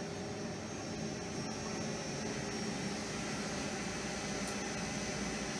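Steady hum and hiss of a running Puma CK6150E flat-bed CNC lathe, with a faint high whine and no change in speed.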